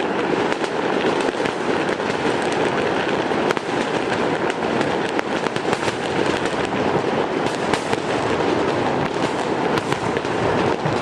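Aerial fireworks going off in a dense, continuous barrage: many sharp pops and crackles over a steady rush of noise.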